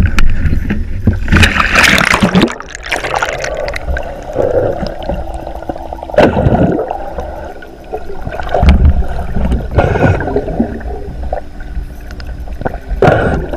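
Water sloshing and gurgling around a spear-mounted GoPro as it goes under the surface, heard through the camera underwater: a loud splashing surge in the first few seconds, then muffled rushing and bubbling surges every few seconds as the snorkeler swims.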